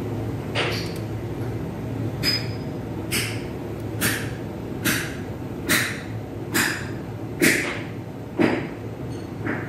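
A regular series of short, sharp knocks, about one a second and about ten in all, over a steady low hum.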